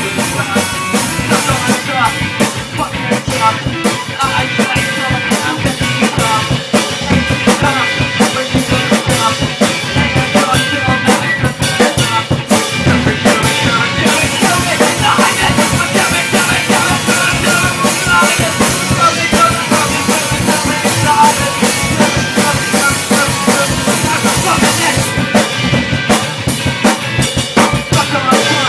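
Instrumental band music: a full drum kit with bass drum and snare keeping a steady beat under sustained instruments, with no singing.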